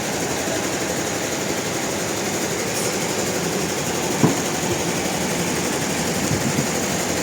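Sawmill machinery running steadily, with one sharp knock a little past the middle and a few lighter knocks near the end.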